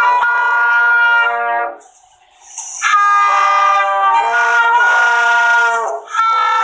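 A school band of wind and brass instruments playing held chords, recorded on a phone's voice recorder. The band stops for about a second around two seconds in, comes back in together, and breaks off briefly again near the end.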